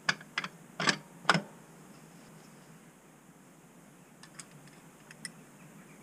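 Sharp metal clicks and clinks of motorcycle clutch parts being handled and fitted by hand into the open clutch housing: about five in the first second and a half, then a few fainter ticks later.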